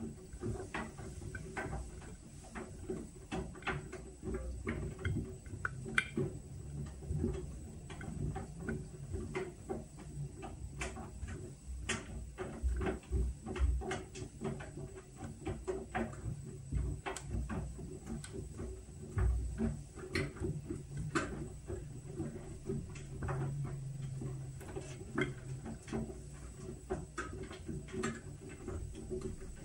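Whirlpool washing machine running its Steam Refresh cycle: a steady low motor hum with irregular light clicks and taps throughout, and a few dull low thuds.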